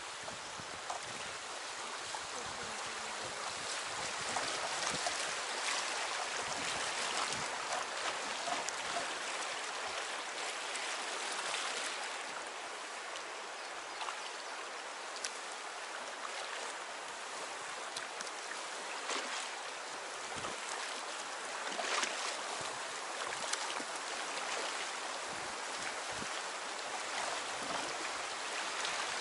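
Flowing river water: a steady rushing hiss with many small splashes and trickles through it.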